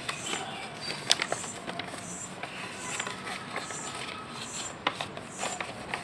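Paper rustling and crinkling as an envelope and a sheet of wrapping paper are handled and unfolded, with a few sharp crackles, the loudest about a second in.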